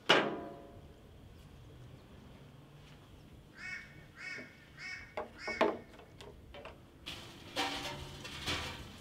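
A sharp metallic clang that rings briefly, then four or five short, harsh animal calls in quick succession, followed by rustling and light knocks near the end.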